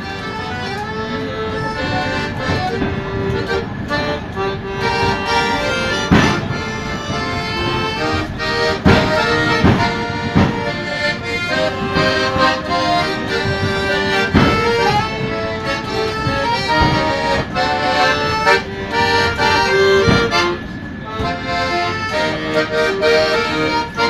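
Piano accordion playing a tune, melody and chords sounding together.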